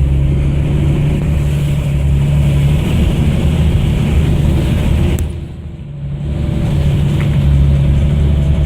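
Off-road vehicle's engine running steadily under load, easing off briefly about five seconds in and then picking up again.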